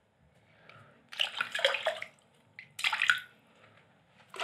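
Water splashing and sloshing in a filled bathtub in three short bursts, the last one at the very end.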